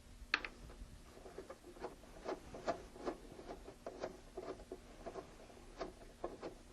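Faint, irregular small clicks and scrapes of metal thumb screws being turned out by hand from the back of an embroidery machine's control panel.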